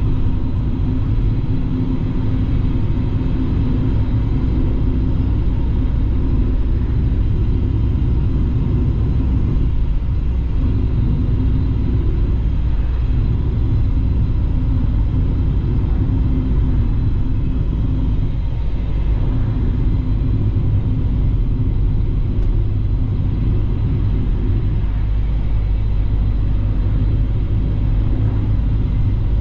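Inside a moving car: the engine drones and the tyres rumble steadily on the road, with a couple of brief dips in the engine note.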